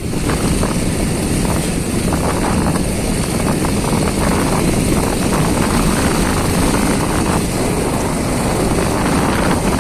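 Motorcycle engine running steadily while riding a rough, muddy off-road trail, with rattling from the bike over the bumps.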